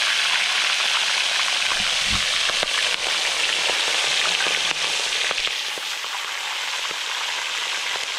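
Fish frying in hot oil in a steel plow-disc pan over a wood fire: a steady loud sizzle dotted with small pops and spatters, easing a little after about five seconds.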